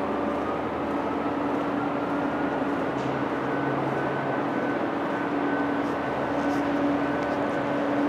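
Steady background noise of a large exhibition hall: an even rush with a low steady hum, and a faint high tone that rises slightly over the first couple of seconds, then holds.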